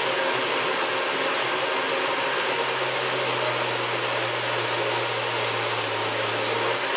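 Countertop blender running steadily at one speed, puréeing a full jar of tomato, V8 juice and onion into gazpacho, a constant motor hum under a loud whir. It is switched off at the very end and the motor winds down.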